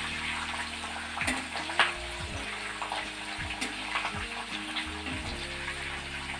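Oil sizzling in a kadai as a tempering of curry leaves, red and green chillies, peanuts, dals and cashews fries. A metal spoon stirs and clinks against the pan several times. Soft background music plays underneath.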